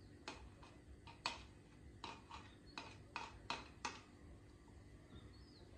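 Metal spoon clinking against a glass jar, about ten light taps in the first four seconds.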